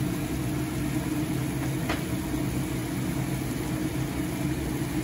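Chicken and tomato curry simmering in a stainless steel pan on a gas burner, over a steady low hum, with one light tap about two seconds in.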